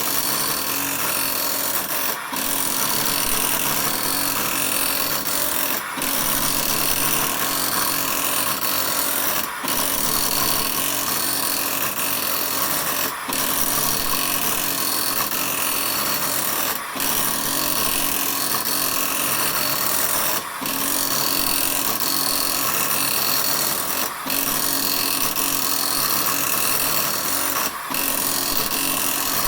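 Radio Shack TRS-80 Daisy Wheel Printer II printing its self-test pattern: rapid, continuous hammering of the daisy wheel striking through the one-strike ribbon. A short break comes about every three and a half seconds as each line ends.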